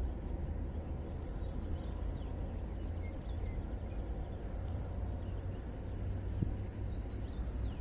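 Outdoor riverside ambience: a steady low rumble with faint bird chirps now and then, and a single soft knock about six seconds in.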